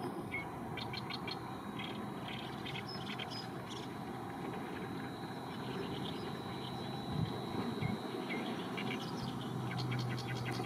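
Small birds chirping in short quick runs over a steady low background rumble.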